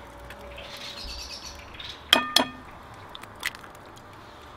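A glass mixing bowl struck twice in quick succession, about two seconds in, ringing briefly after each knock, as an egg is knocked against its rim to crack it; a lighter click follows about a second later. A bird chirps in the background during the first couple of seconds.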